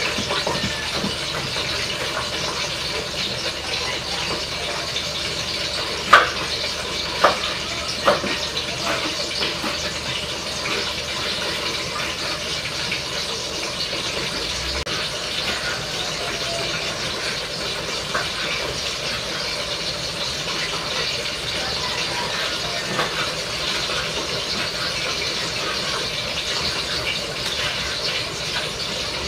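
A steady rushing noise, with three sharp knocks close together about six to eight seconds in and a couple of fainter knocks later.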